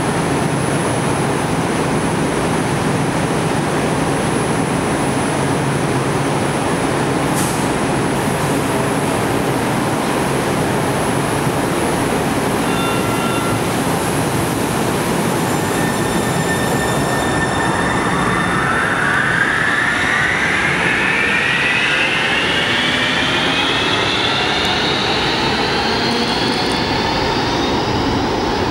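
Kinkisharyo light rail train at the platform with a steady hum. About two-thirds of the way through it pulls away, and its motor whine rises slowly in pitch as it accelerates.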